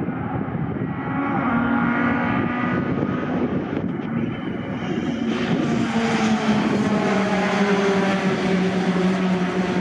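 Pack of racing pickup trucks driving past at speed, their race engines running hard with a steady drone. About four seconds in the sound jumps at a cut, and a single truck's engine is heard passing close by.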